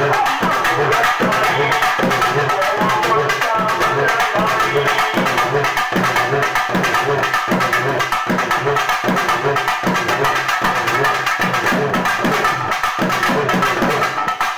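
Urumi melam, a Tamil folk drum ensemble, playing a fast, steady beat with sticks on rope-laced drums, with a sustained droning tone held above the strokes.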